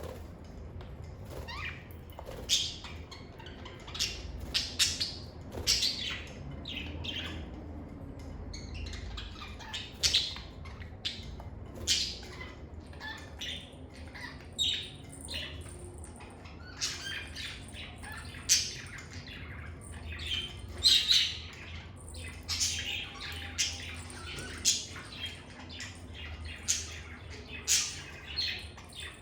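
Lovebirds giving short, shrill chirps and squawks in a quick, irregular stream, several calls a second at the busiest, over a low steady hum.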